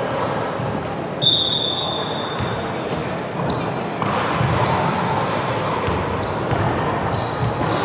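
Basketball game sounds: the ball bouncing on the court and sneakers squeaking in short high-pitched chirps, with players' voices in the background.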